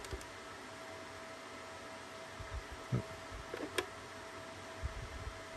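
Low steady hum with a few soft handling taps and one sharp click a little under four seconds in, as a button on the Nortel Millennium desk payphone is pressed to clear a misdialed number.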